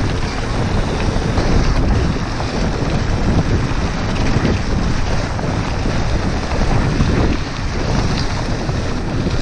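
Wind buffeting an action camera's microphone on a mountain bike in motion, a steady loud rumble mixed with the tyres rolling over a gravel track.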